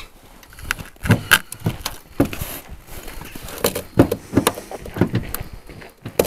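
Irregular knocks, clicks and scrapes of a metal poker being worked through the gap above a car's door glass, fishing for the inside door handle.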